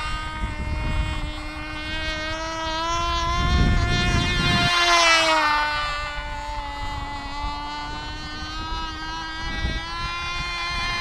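Cox RR1 .049 rear-rotary glow engine buzzing at high pitch as the small model plane flies around, its pitch rising and falling as it passes; about four and a half seconds in the pitch drops sharply as it flies by. The engine is running a little rich. Wind rumbles on the microphone.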